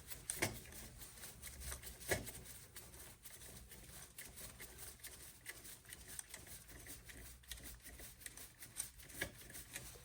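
Faint, rapid small clicks and scrapes of a hand screwdriver turning sheet-metal screws out of a circuit board's mounting plate, with a few sharper clicks about two seconds in and near the end.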